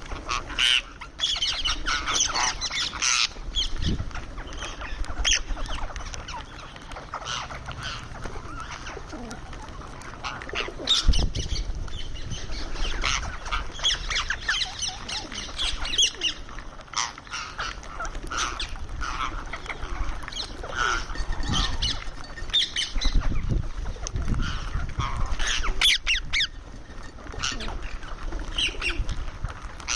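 Indian ringneck parakeet giving many short squawks and chattering calls while it eats, mixed with sharp clicks and a few low thumps.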